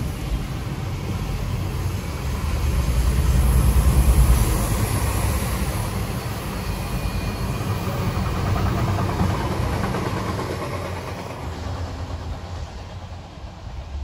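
CSX freight train's autorack cars rolling past on the rails: a steady rumble of steel wheels on track that swells about four seconds in and fades near the end as the last cars go by.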